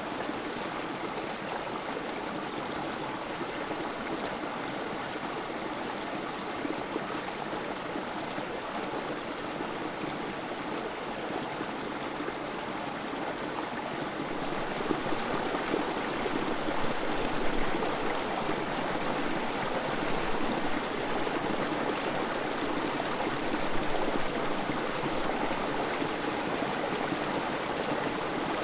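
Creek water trickling and spilling over rocks in a small cascade: a steady babbling of running water that grows slightly louder about halfway through.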